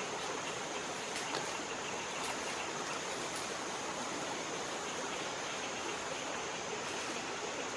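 Steady rushing of flowing water, with a few faint ticks.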